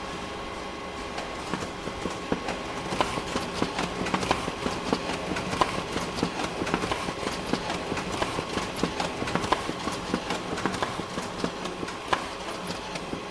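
Photocopier running: a steady hum with a rapid, irregular clatter of clicks that starts about a second in, grows dense, and stops near the end, leaving the hum.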